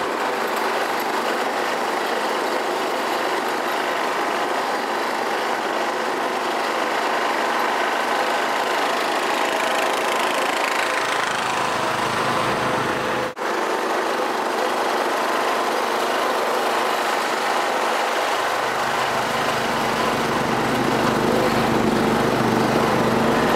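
Lawn tractor engine running steadily, with a momentary break about thirteen seconds in.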